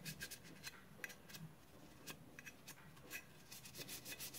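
Faint, irregular light clicks and rubbing of metal gun parts being handled: an AR upper receiver and its slotted handguard knocking and sliding against each other as they are fitted.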